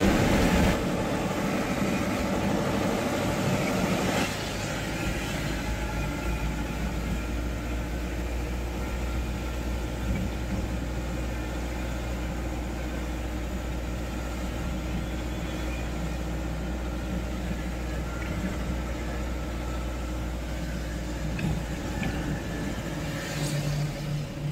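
Car driving steadily on a wet road: a continuous engine hum with road noise, a little louder for the first four seconds.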